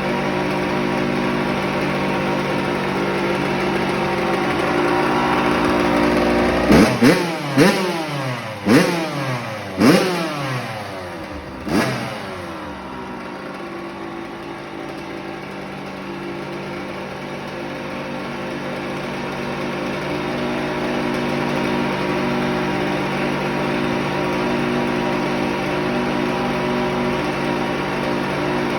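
The freshly rebuilt single-cylinder two-stroke engine of a 2007 Kawasaki KX85 dirt bike, with a new crank, crank bearings and piston, idling steadily. About a quarter of the way in it is given six quick throttle blips, each rising and falling in pitch, and it then settles back to a steady idle.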